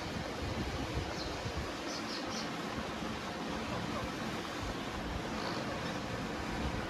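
Steady hiss of noise with gusty low rumble, like wind on the microphone. Over it come a few faint, short, high chirps: one about a second in, two or three around two seconds, and one near five and a half seconds.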